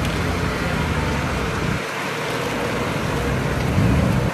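Classic car engine and exhaust running as the car drives by at low speed. The sound dips briefly about two seconds in and grows louder again near the end.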